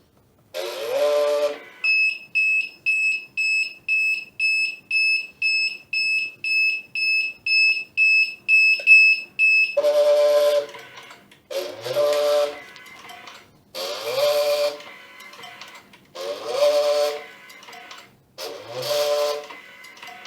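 An electronic buzzer beeps steadily, about two to three beeps a second, for around eight seconds. Then the label cutting machine runs through five feed-and-cut cycles, about every two and a half seconds. Each cycle is a short pitched motor whine with a rush of mechanical noise, from the stepper-motor feed and the 24 V DC geared cutter motor.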